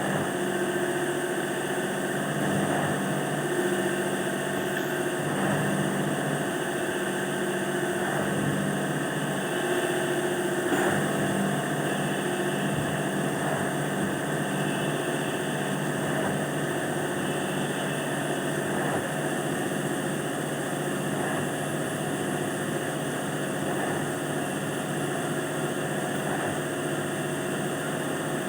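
A machine running steadily, a constant engine-like hum.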